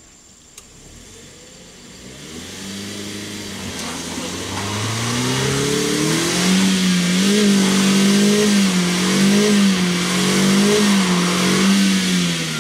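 Toyota Calya's 1.2-litre four-cylinder engine revving hard while the front-wheel-drive car is stuck in deep mud. The engine rises in pitch from about two seconds in, then swells and dips repeatedly as the throttle is worked, and eases off near the end.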